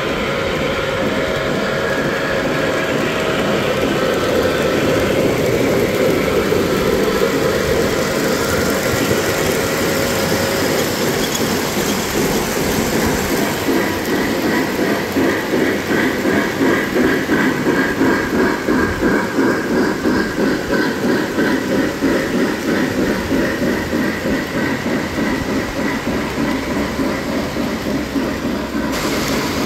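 Three-rail O-gauge model steam locomotive and its passenger cars running past on the layout track, a continuous mechanical rumble of motor and wheels on the rails. From about halfway through, a steady rhythmic pulsing of roughly two to three beats a second sets in.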